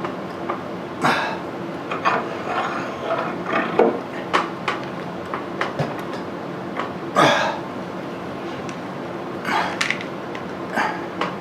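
A 3/16 keyway broach being forced through a steel pulley's bore by hand: irregular metallic clicks and short scraping cracks as the broach teeth shear chips, over a steady low hum.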